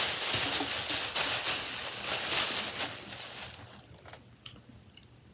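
Crinkling and rustling of plastic packaging as items are handled, trailing off into near silence about four seconds in.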